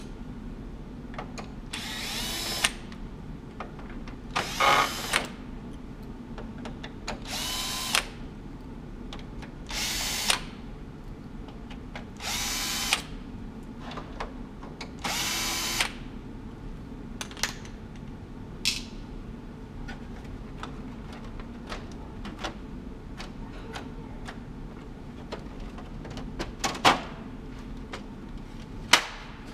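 Cordless power screwdriver whirring in about six short runs a few seconds apart as it backs out the screws of a copier's inner front cover. Later come scattered sharp plastic clicks and knocks as the cover is handled.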